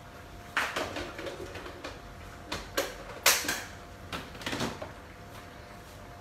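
Kitchen clatter: a handful of sharp clicks and knocks at uneven times, the loudest about three seconds in, as utensils and seasoning containers are handled beside a pot of chicken, over a faint steady hum.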